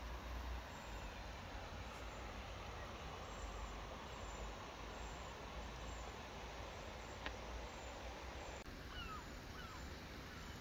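Steady hiss of flowing river water with wind rumbling on the microphone. A single sharp click about seven seconds in, and a few short chirping bird calls near the end.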